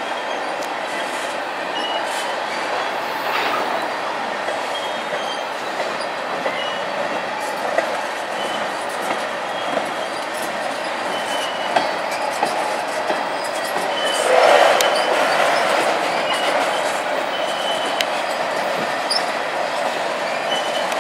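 Freight cars of a slow-moving train, tank cars then covered hoppers, rolling past on steel rails with a steady rumble. Short high wheel squeals and occasional clicks come through, and the sound swells louder about two-thirds of the way in.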